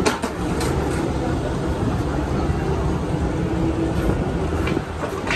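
Steady running noise of a PCC streetcar standing at a stop, with a low hum from its equipment partway through.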